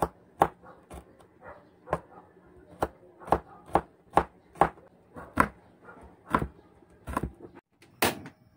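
Kitchen knife chopping garlic cloves on a wooden cutting board, sharp knocks about two a second, with a louder knock near the end.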